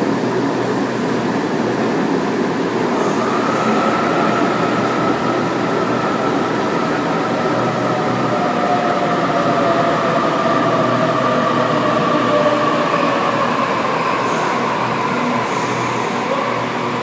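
Sydney Trains Waratah (A set) double-deck electric train pulling into an underground platform: a steady rumble of wheels on rail, with a motor whine that falls slowly in pitch as the train slows.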